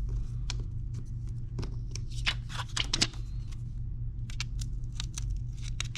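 Light clicks and scratchy rustles of hands and a small tool working on an Apple Watch as its loosened screen is eased up, busiest about two to three seconds in.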